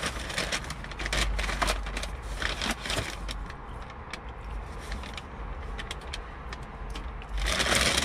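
Brown paper takeout bag crinkling and rustling as it is handled and folded shut, with scattered sharp crackles, then a louder, continuous rustle starting near the end.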